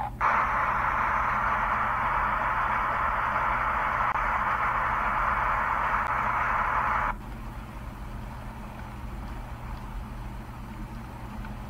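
Heavy rain pouring down with a loud, steady hiss. About seven seconds in it cuts suddenly to a quieter, duller rain sound.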